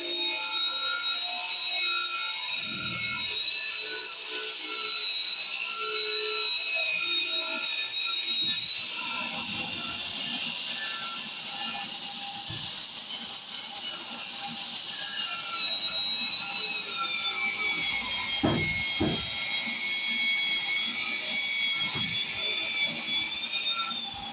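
Angle grinder fitted with a wire brush wheel scrubbing rust off a steel pipe: a steady high whine whose pitch sags past the middle as the wheel is pressed into the metal, then climbs again near the end. A couple of low knocks come about two thirds of the way through.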